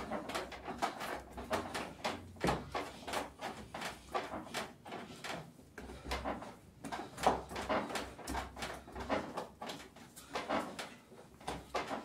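Hands working a large batch of sweet bread dough on a work surface, making repeated irregular thumps and knocks.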